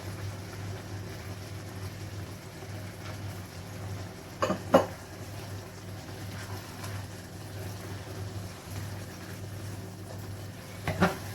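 A pot of spinach stew cooking on the stove with a steady hiss and low hum, broken by two quick pairs of sharp knocks, about four and a half seconds in and again near the end, as spices go into the pot.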